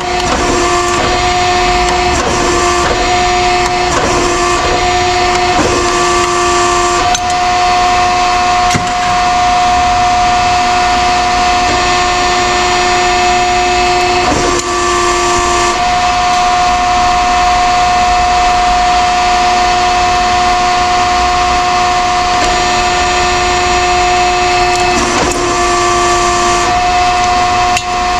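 A loud, steady mechanical drone held at one pitch with overtones, with scattered knocks and clatters, most of them in the first several seconds.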